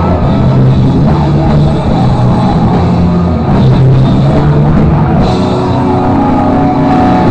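Live rock band playing loud, with electric guitar and drum kit going throughout.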